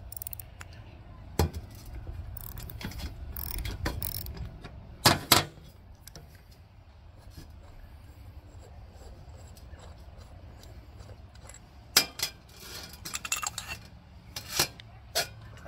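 Small ratchet with a 10 mm socket clicking as it unscrews the float-bowl bolt of a small engine carburetor, with sharp metal knocks about five seconds in. Near the end, more metal clinks and knocks as the bowl and its bolt are handled over a metal drain pan.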